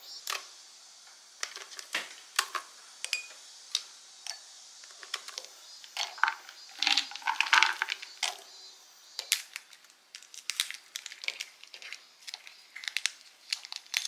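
Scattered light clicks and rustling as almonds, candied nuts and chocolate pieces are dropped by hand onto bowls of yogurt, with a denser run of rustling about halfway through.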